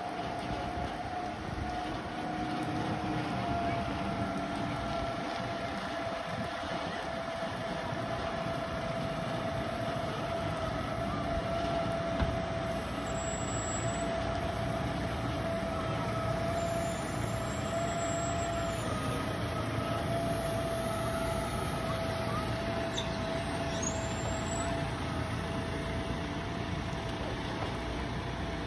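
Boat engine running steadily, with a constant whine over a rumbling wash of noise.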